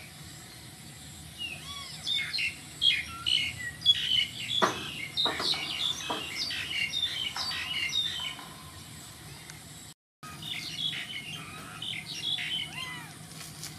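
Birds chirping and twittering in many quick, high calls. The calls are busiest in the first half, cut out briefly about ten seconds in, then resume.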